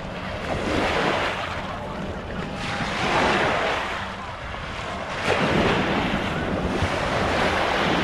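Small sea waves washing up onto the sand, swelling and easing every two to three seconds, with wind rumbling on the microphone.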